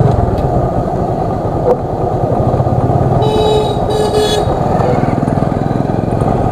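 Single-cylinder Bajaj Pulsar 135 LS motorcycle engine running while riding at low speed, with a vehicle horn beeping twice about three seconds in.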